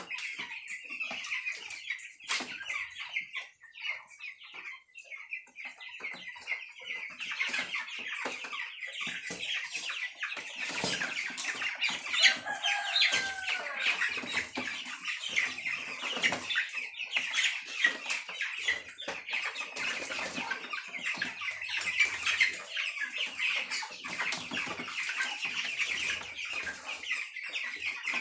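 A flock of young broiler chickens peeping and clucking continuously, with bursts of wing flapping and scattered knocks and rustles as birds are handled in a plastic crate.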